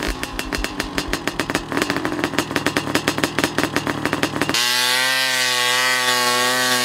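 Snowmobile engine: a fast, rattling stream of pulses, then, about four and a half seconds in, a steady engine note that wavers slightly in pitch.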